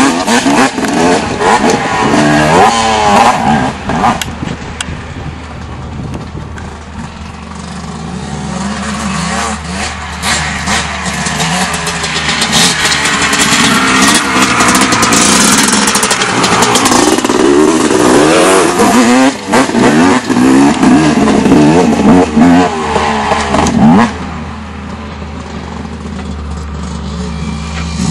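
Dirt bike engines revving up and down as the bikes ride, the pitch rising and falling with the throttle. They are quieter for a few seconds after the start and again near the end.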